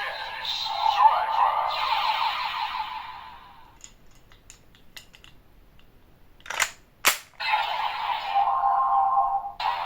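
Toy transformation belt's small speaker playing electronic sound effects for about three seconds, then quiet with light plastic clicks. Two sharp clicks come about seven seconds in, and the belt starts a looping standby tune with steady tones.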